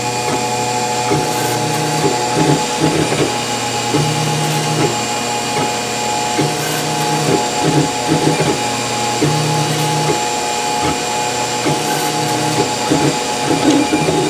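Wanhao Duplicator 4 3D printer printing: its stepper motors hum in short pitched stretches that come back every two to three seconds as the print head traces the same moves over the part, over a steady higher hum.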